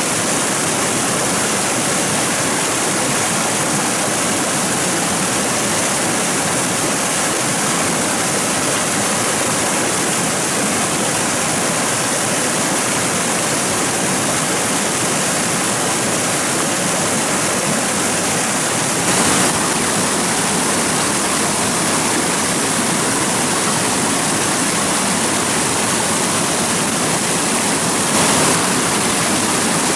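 Steady rush of flowing water, an even hiss with two brief louder swells about two-thirds of the way in and near the end.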